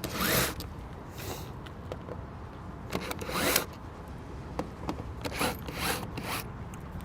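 Screws being backed out of a welding machine's user interface panel: several short rasping, zipper-like bursts, one for each turn of the driver on the 5/16 screws.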